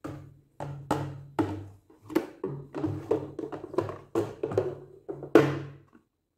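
Clear plastic kitchen organizer trays knocking and clattering against each other and the counter as they are unstacked and handled. It is an uneven run of about fifteen knocks, with the loudest one near the end.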